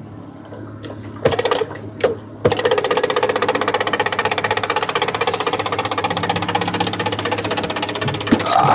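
A small motor-driven mechanism starts about two and a half seconds in and runs with a fast, even mechanical chatter. A steady low engine hum runs underneath, and a couple of sharp knocks come just before the chatter starts.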